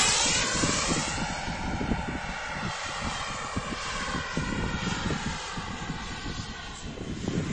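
Xicoy X45 model jet turbine whining as the RC glider flies past and away. The pitch drops just after the pass, then holds steady as the sound fades. Gusts of wind buffet the microphone underneath.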